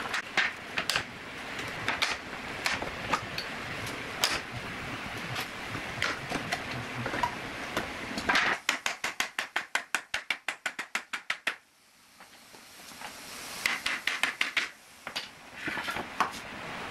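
Wooden pallet boards being pried off with a steel pry bar: sharp knocks and clatter of wood, with a fast even run of clicks for about three seconds midway, a short lull, then more knocks.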